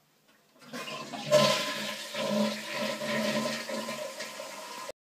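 A toilet flushing: rushing, gurgling water that starts about half a second in, is loudest just after a second, and cuts off abruptly near the end.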